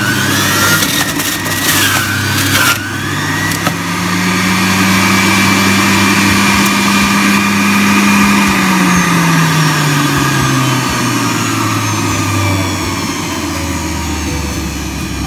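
Electric centrifugal juicer running as produce is pushed down its feed chute with the plunger: rough grinding and rattling for the first few seconds, then a steady motor hum whose pitch rises, holds, and sinks again over the second half.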